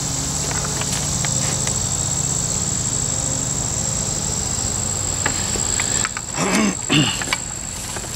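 Steady high-pitched drone of insects, with a faint low hum beneath it. A few light clicks and knocks come from handling the circular saw, and there is a brief louder low sound near the end.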